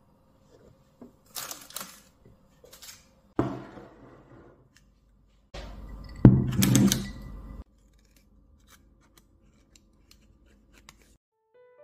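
Iced coffee being poured into a glass of ice cubes, splashing over the ice for about two seconds near the middle. Before it come a few crisp rustles and one sudden knock that dies away.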